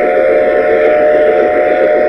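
Model steam locomotive's whistle blowing one long, steady chord of several notes over the running noise of the train on the track.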